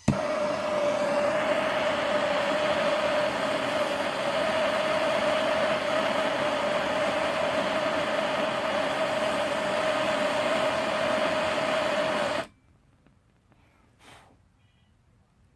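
Propane torch burning, a steady loud hiss with an even tone running through it, as it heats the radiator bracket joint to flow solder. It shuts off suddenly about twelve seconds in.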